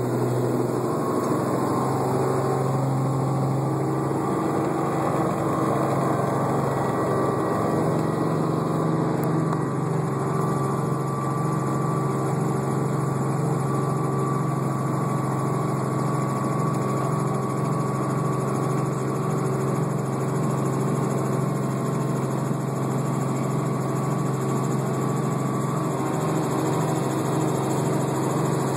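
Helicopter engine and rotor running steadily: a loud, constant low hum, with a fast regular pulsing coming in about eight seconds in.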